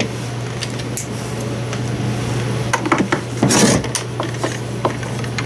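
Hand screwdriver backing small Phillips screws out of a battery chainsaw's plastic housing: scattered small clicks and scrapes, with a louder clatter about three and a half seconds in. A steady low hum sits under it all.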